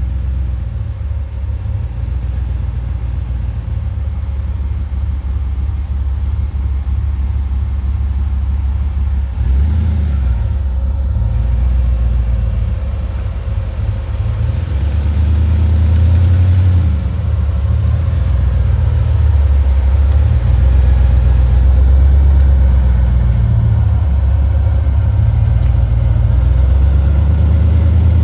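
Jeep Comanche pickup's engine running as it drives off-road, its revs rising and falling and growing louder from about ten seconds in.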